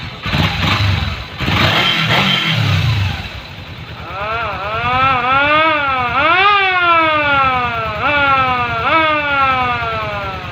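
Electronic siren-style vehicle horn sounding, starting about four seconds in with a few quick rise-and-fall wails, then a run of falling sweeps about once a second. Before it, dance music with a heavy bass beat plays.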